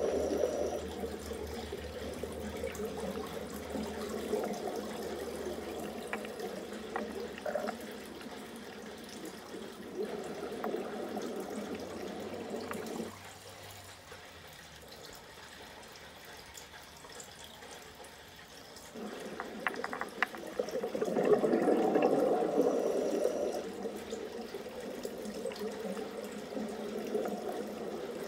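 Running, bubbling water: a continuous rushing burble that swells and fades, drops lower for several seconds in the middle, then swells up loud again.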